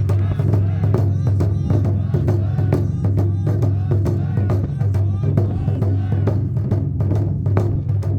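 Festival drumming: a drum struck in a steady rhythm about twice a second, over a steady low hum.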